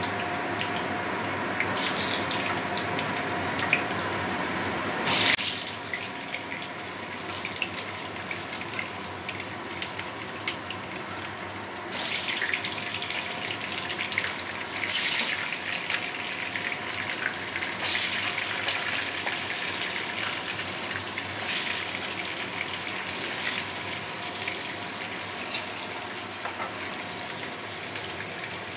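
Potato pieces sizzling as they fry in hot oil in a kadai. Each potato dropped in sets off a sudden louder flare of sizzling, about six times, over the steady frying sizzle.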